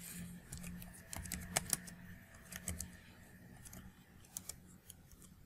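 Computer keyboard keys clicking as someone types, in irregular runs of keystrokes with short pauses between them.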